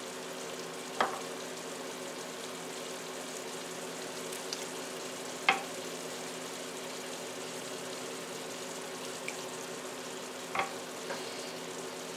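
Diced tomatoes, spinach and onion sizzling steadily in a skillet over a low hum, while chicken pieces are spooned in. There are three sharp taps of a spatula on the dishes, about one, five and a half and ten and a half seconds in.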